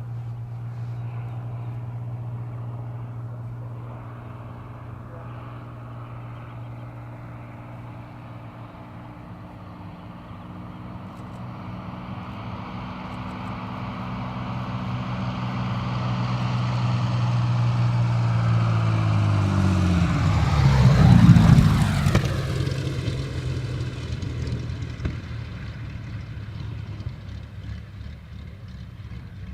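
Hawker Sea Hurricane's Rolls-Royce Merlin V12 engine and propeller in a fly-past. The steady engine drone grows louder as the aircraft approaches, is loudest about two-thirds of the way through with the pitch dropping as it passes, and then fades away.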